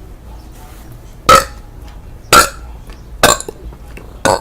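A young woman burping four times, each burp short and loud, about a second apart.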